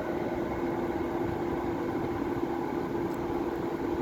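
Steady machine hum with a constant low drone that does not change.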